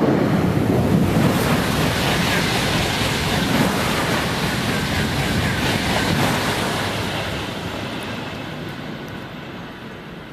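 A train passing at speed close by: a loud, even rushing noise with no horn tone, strongest for the first six seconds and then fading away as it recedes.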